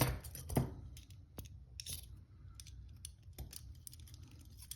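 Smith & Wesson handcuffs being handled, giving sharp metal clicks: a loud one at the start and another about half a second in, then fainter scattered clicks and small rattles.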